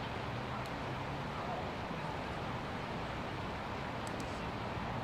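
Steady outdoor background noise, a low hum with hiss over it, with a few faint bird chirps.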